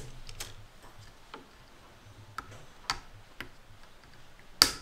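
Side cutters snipping plastic zip ties and handling them: a string of light clicks, with one sharp snap near the end.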